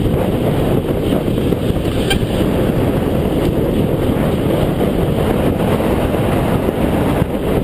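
Wind buffeting the microphone of a cyclist's camera on a fast road descent at about 32 mph: a steady, loud, low rushing.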